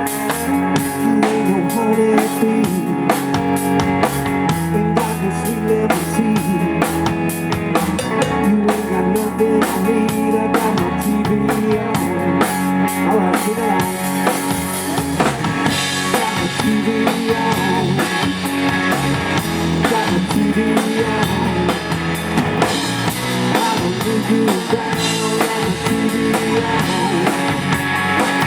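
A live rock band playing an instrumental passage, with drum kit (bass drum, snare and rimshots) and guitar over a steady beat.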